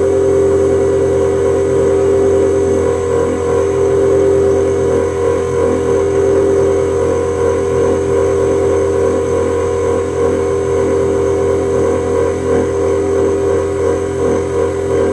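Spectral MM milling machine running, its 10 mm three-flute end mill cutting a 10 mm-deep slot in a copper bar at slow Y-axis feed. The sound is a steady machine hum with a strong mid-pitched tone.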